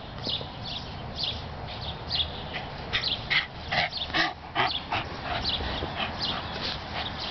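A dog making short, high-pitched repeated sounds, about two a second. They are louder and fuller for a couple of seconds in the middle, when the dog is right at the microphone.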